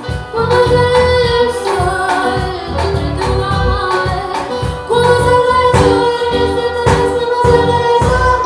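A woman singing a song with a live band, holding long notes over steady drum beats and bass.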